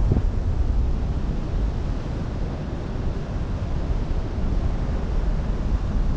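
Wind buffeting the microphone with a deep rumble, over the steady wash of open sea water.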